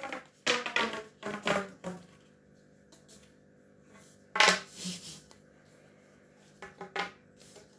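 A large plastic pop tube fidget toy being stretched and squeezed, giving a few short ribbed popping and ringing sounds with pauses between.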